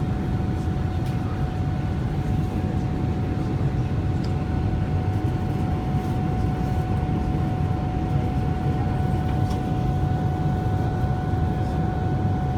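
Cabin noise aboard an airborne Boeing 777-300ER: a steady rumble of its GE90 engines and rushing air, with a constant high whine held throughout.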